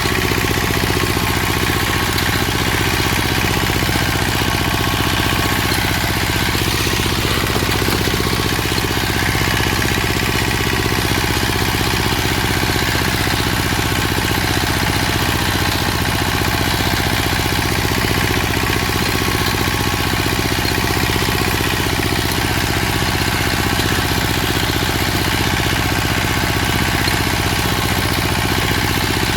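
A motor running steadily at an unchanging speed, without let-up.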